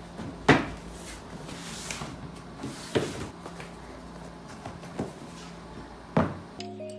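Four sharp knocks of objects being handled and set down on a hard surface, spaced one to two and a half seconds apart, over a low steady hum. Music starts near the end.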